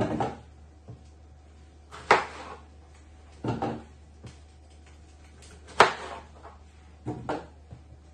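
Irregular sharp knocks of a knife and small white eggplants on a plastic cutting board, about six in all, the loudest about two seconds and six seconds in.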